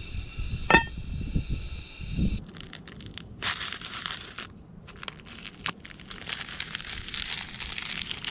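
Plastic instant-noodle packets being handled, crinkled and crushed, in dense crackly bursts. Before that, for about the first two seconds, a steady high insect drone with a few low thumps.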